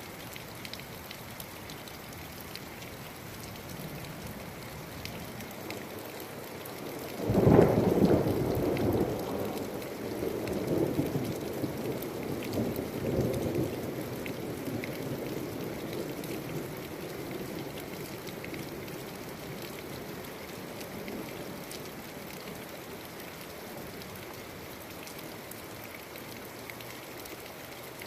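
Steady rain falling during a thunderstorm. About seven seconds in, a sudden loud thunderclap breaks out and rolls on as rumbling thunder in several swells, fading away over the next fifteen seconds or so.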